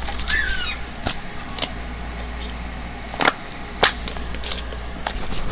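Slime being pulled and worked by hand, giving a string of sharp, irregular clicks and pops.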